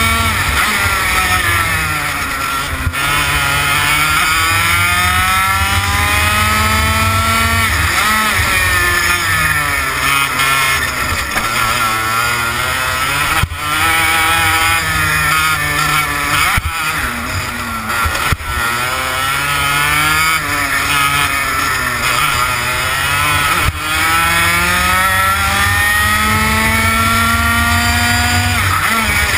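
TKM BT82 Extreme two-stroke kart engine running at racing speed, its pitch climbing for several seconds under acceleration, then falling sharply as the throttle comes off, about every five seconds as the kart laps.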